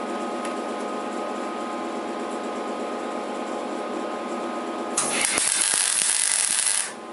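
Steady machine hum made of several even tones. About five seconds in, a welding arc strikes for a two-second tack weld on the steel frame, crackling and hissing loudly, then cuts off sharply.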